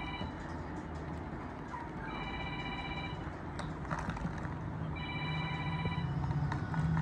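A phone ringing with an electronic ringtone: a pitched chime about a second long, repeating roughly every three seconds. A low steady hum comes up in the background near the end.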